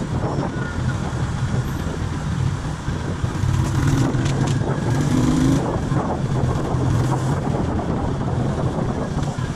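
Motorcycle engine running while riding through city traffic, heard close up from the rider's seat. The engine gets louder for a couple of seconds about four seconds in.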